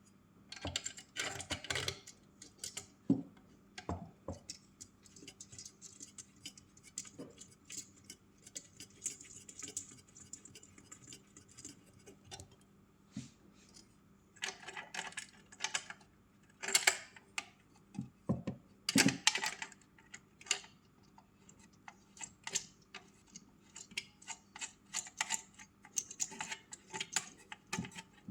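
Parts of a flat-pack pet bowl stand being handled and fitted: scattered small clicks, taps and rattles of screws and fittings, with a few louder scraping rustles about halfway through.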